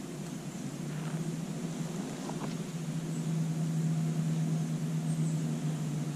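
Steady low drone of a distant engine, growing louder from about halfway through.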